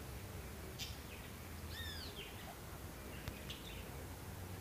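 A few scattered bird chirps, one falling chirp standing out about two seconds in, over a steady low background hum.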